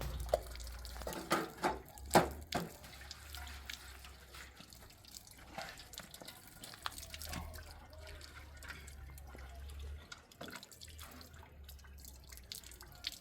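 Water dripping and trickling, as from a tap into a sink, with a few sharp clatters about one to two and a half seconds in. A low hum runs underneath and stops about ten seconds in.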